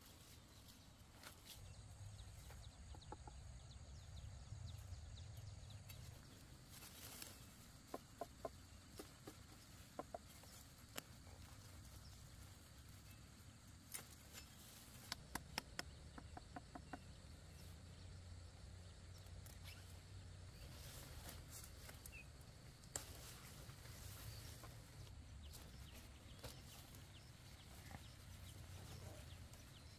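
Faint chickens clucking in a few short runs, mostly around the middle, over a low steady rumble, with a few sharp clicks.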